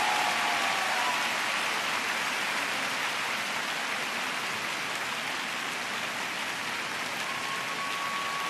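Large arena crowd applauding steadily, a dense even clatter of clapping. A thin steady tone comes in near the end.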